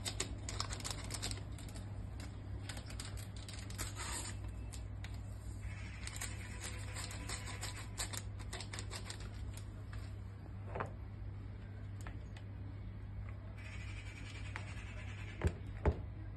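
Paper sachets of vanilla sugar being torn open and shaken out, a stretch of crinkling and quick rustling clicks that thins out after about nine seconds, over a steady low hum. Two sharp knocks come just before the end.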